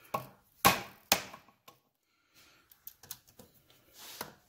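Hammer blows on a hand impact driver, setting Phillips screws tight in a Triumph gearbox's aluminium outer cover. There are three sharp metallic knocks about half a second apart in the first second and a half, then a few lighter taps.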